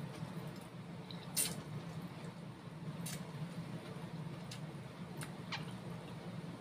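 A person slurping and chewing noodles from a bowl of meatball soup: soft wet mouth sounds with about five short, sharp slurps, over a steady low hum.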